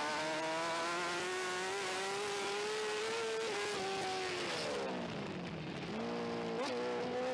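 Superbike engine heard through an onboard camera on the bike, running hard at a high, steady pitch. It eases off about three and a half seconds in, the pitch falling for a second or so, then picks up again near six seconds with a brief blip.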